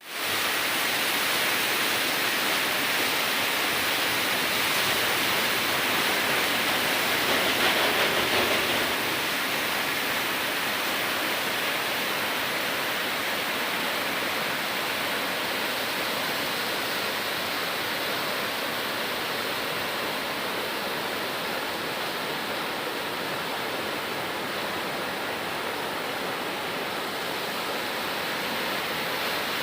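Rushing water, a steady, even roar that swells slightly about eight seconds in.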